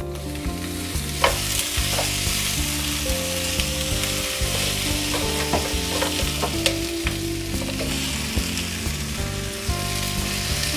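Potato and capsicum sabzi sizzling steadily in a frying pan as it is stirred with a wooden spatula and the chopped tomatoes go in. A few sharp clicks of the spatula against the pan come through the sizzle.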